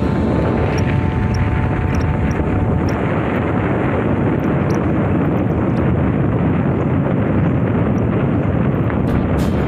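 Steady wind rumble buffeting the microphone, mixed with the running noise of a moving vehicle on the road.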